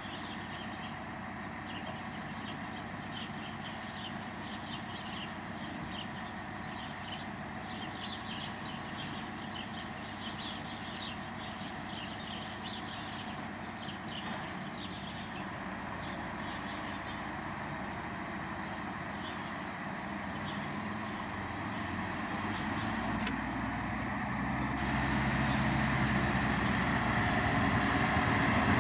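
Diesel engines of a Siemens Desiro diesel multiple unit idling at the station platform, then working harder as the train pulls out. The sound grows steadily louder over the last several seconds as the train comes closer.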